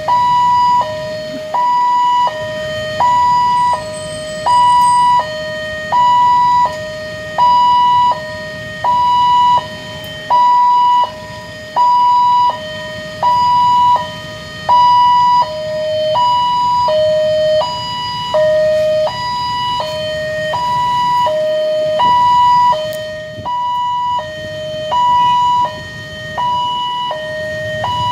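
Railway level-crossing warning alarm sounding its two-tone signal, a higher and a lower tone alternating steadily about once a second, with a low rumble beneath.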